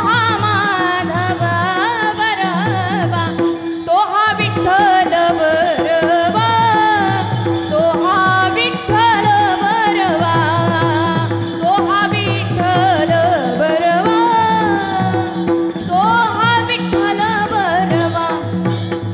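A woman sings a Marathi devotional abhang in long, ornamented phrases, over a steady drone from the long-necked varkari veena she holds. Small brass hand cymbals (taal) and a drum keep a steady rhythm beneath the voice.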